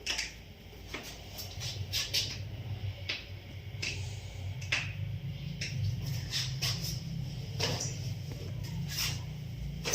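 Scattered light clicks and rustles at irregular intervals over a low steady hum.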